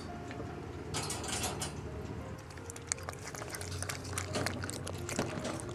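A cat crunching dry kibble from a bowl: a rapid string of short, crisp crunches, thickest in the second half.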